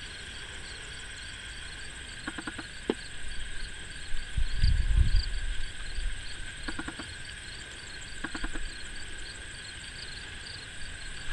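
Outdoor insect chorus: a steady, shrill, pulsing trill. A few short chirps come through it three times, and there is a brief low rumble about halfway through.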